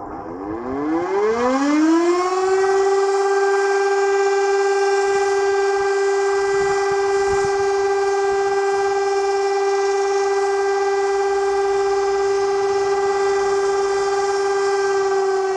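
Auer LS 7 electric motor siren starting up: its tone rises over the first two or three seconds to one steady pitch and holds there, just beginning to sag at the end. The tone is somewhat odd and rather muffled, which may come from the rotor being fitted the wrong way round, drawing air in at the top instead of the bottom, and from a possibly replaced motor.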